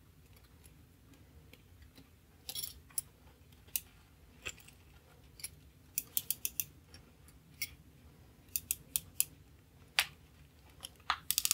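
Scattered sharp small metallic clicks and taps, with a quick run of about five near the middle and more clusters toward the end: a temporary clamp being fitted around a clock movement's mainspring by hand.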